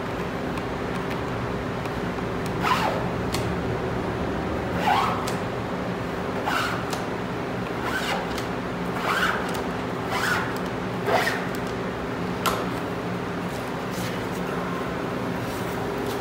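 Squeegee scraped across a screen-printing mesh screen in about eight short, separate swipes, working plastisol ink through a clogged letter of the stencil. A steady low hum runs underneath.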